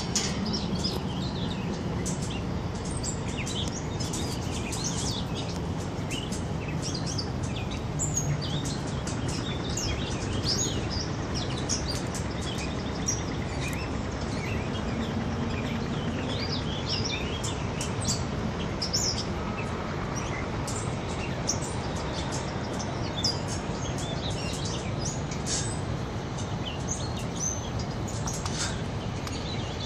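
Small songbirds chirping and twittering, many short high calls scattered throughout, over a steady low background rumble.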